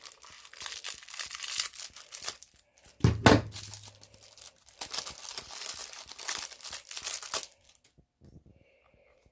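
Packaging crinkling and tearing as a small item is pulled out of it by hand, with a single knock about three seconds in; the crackling stops about two seconds before the end.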